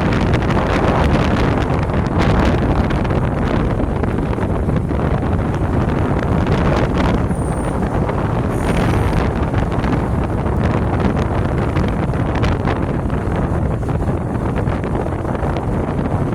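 Wind buffeting the microphone: a loud, steady rumble and rush that doesn't let up. Two brief faint high-pitched sounds come about halfway through.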